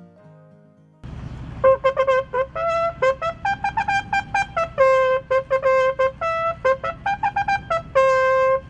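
Bugle call: a fast run of short, tongued notes jumping among the bugle's few open tones, ending on one long held low note. A guitar music bed fades out just before the call.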